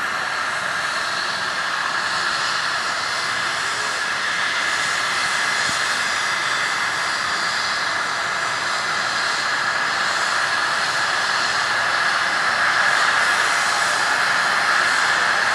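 Eurocopter EC135 trauma helicopter's twin turbines whining steadily while it runs on the ground with its rotor turning. It grows a little louder near the end.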